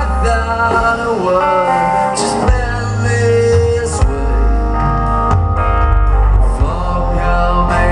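Rock band music with guitars, sustained bass and occasional drum hits, with some gliding pitched lines that may be singing.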